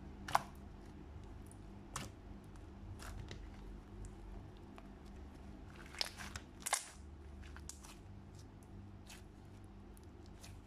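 Thick, gummy slime studded with foam beads being kneaded and squeezed by hand, giving scattered small clicking pops and crackles as trapped air bubbles pop. The loudest pops come as a pair about six seconds in.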